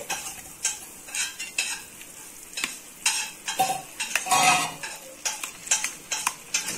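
Steel spoon stirring a thick jaggery, fruit and date mixture in a brass uruli. The spoon gives irregular scrapes and knocks against the metal pan, the loudest a little past the middle.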